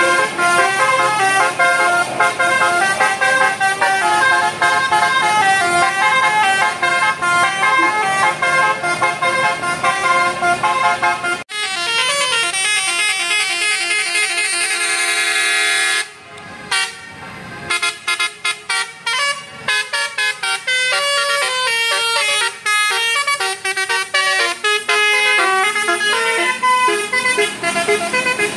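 Bus telolet horn (a Basuri multi-tone musical air horn) playing a tune of stepped notes. It breaks off sharply about eleven seconds in and starts a new tune, then goes on in quick short notes with brief gaps.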